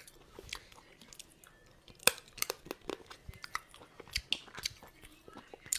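Crab legs being eaten close to the microphone: irregular sharp cracks and clicks of shell breaking, with crunching and chewing. The loudest crack comes about two seconds in.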